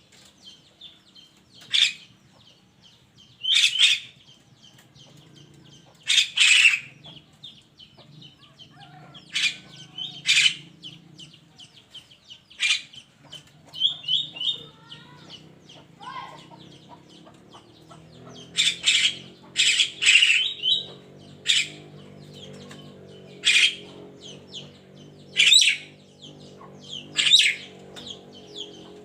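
A burung kerak songbird giving loud, harsh, squawky calls, one every second or two, coming thicker and faster in the second half.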